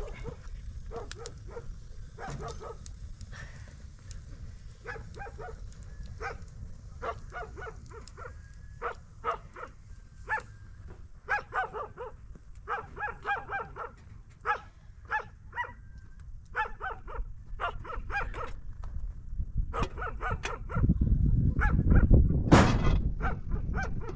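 A dog barking over and over, quick runs of short barks with brief pauses between them. Under it runs a low rumble of wind on the microphone, which swells into a strong gust near the end, the loudest thing here.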